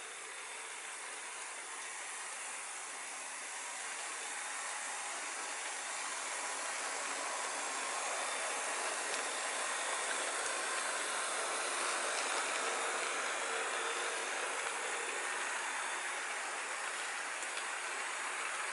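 Model freight train rolling along plastic-roadbed track, its wheels and locomotive motors making a steady whirring clatter. It gets louder over the first several seconds as the train comes up and then holds steady as the cars pass.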